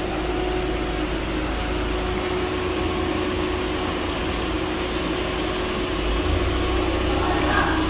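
Steady mechanical hum of workshop machinery, with a constant droning tone over a noisy background. A deeper rumble swells about six seconds in.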